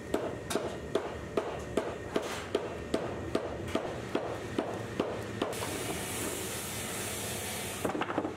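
A glue brush dabbing adhesive onto the leather bottom of a boot, a sticky tap about two and a half times a second. About five and a half seconds in the taps stop and a steady hiss runs for a couple of seconds, then a few more taps follow.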